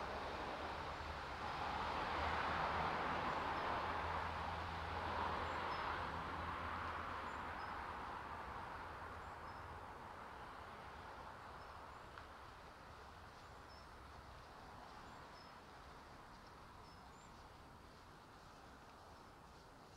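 Motorbike passing on a nearby road: its engine swells over the first few seconds, then fades steadily away.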